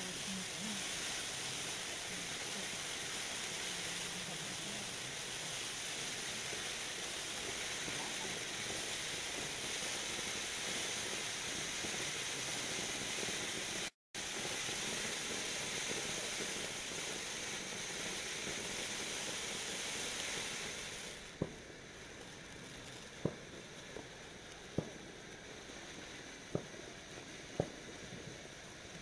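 Pyrotechnic ground fountain burning with a steady rushing hiss of sparks, cutting out for a moment about halfway through. After about 21 seconds the hiss drops away and sharp pops come roughly every second and a half as the fountain throws red stars.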